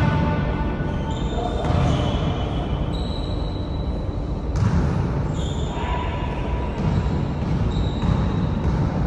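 Background music with held notes that change every second or so, over irregular low thuds.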